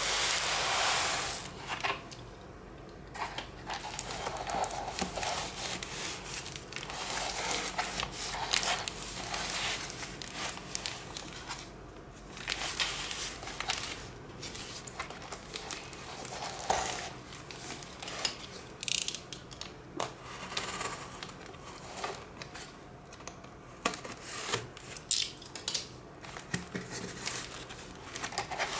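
Hands handling and turning a cardboard parcel wrapped in plastic packing tape: irregular rustling and scraping of cardboard and tape, with sharp taps and knocks, more of them in the second half.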